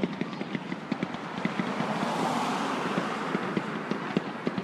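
Fireworks crackling with many sharp, irregular cracks several times a second, and a rushing hiss that swells and fades in the middle.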